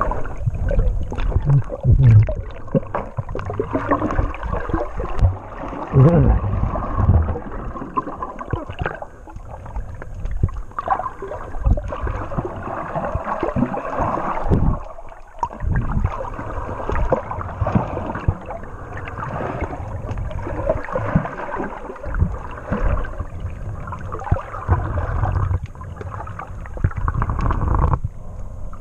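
Muffled underwater sound of water moving and gurgling around a submerged microphone, with irregular low knocks and thumps throughout.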